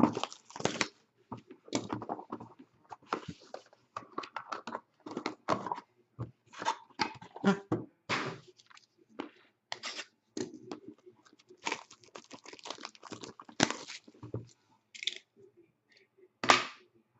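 A sealed hockey card box's plastic wrap and cardboard being torn open and handled: irregular tearing and rustling with scattered clicks, and one louder sharp snap near the end.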